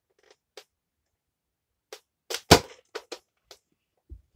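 Adventure Force toy sniper dart blaster fired once about two and a half seconds in: a short, sharp pop, with a few small clicks just before and after it. A dull thump near the end.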